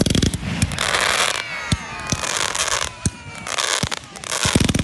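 Fireworks going off: a burst of rapid crackling at the start, then several loud hissing, crackling bursts broken by sharp single bangs.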